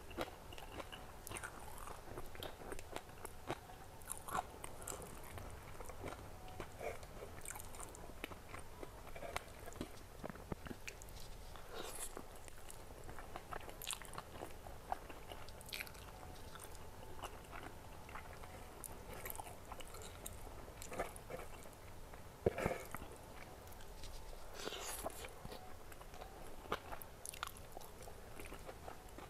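Close-up chewing and biting of spicy crispy fried chicken and noodles eaten by hand, with crunching and wet mouth sounds and one louder sharp crunch about two-thirds of the way through.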